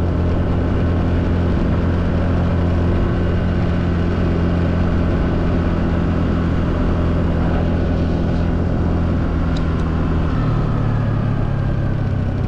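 Honda Navi's single-cylinder four-stroke engine running steadily while riding. About ten seconds in the engine note rises.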